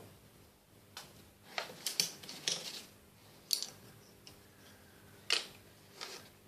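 Craft supplies handled on a work table: an irregular string of sharp clicks and taps with a few short scrapes, the loudest about two, three and a half and five and a half seconds in.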